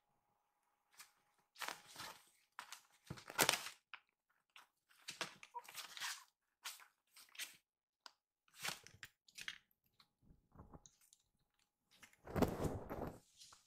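Kittens scrambling in and against a pop-up fabric play tent: irregular crinkly rustling and scuffling in short bursts with pauses between, the longest and loudest near the end.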